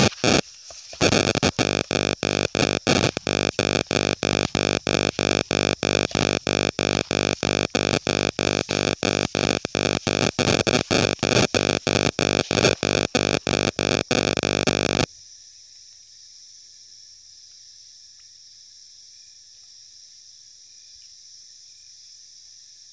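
Loud electronic buzzing from a faulty microphone: a steady multi-tone drone chopped into rapid even pulses, about three or four a second. It cuts off suddenly partway through and leaves only a faint low hum and hiss.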